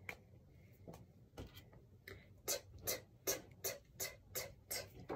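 Soft, quick ticking, about three short clicks a second, starting about halfway through.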